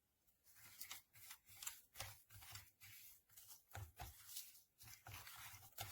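Faint, irregular rustling and clicking of objects being handled, a quick run of small clicks and scrapes.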